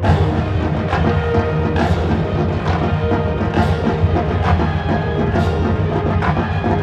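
Marching band playing: sustained ensemble chords over a heavy low end, with accented percussion hits about once a second.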